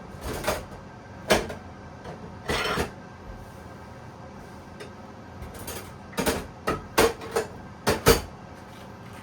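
Household objects being handled and set down: a string of short knocks and clatters, about ten in all, with one longer scrape a few seconds in and the knocks coming closer together near the end.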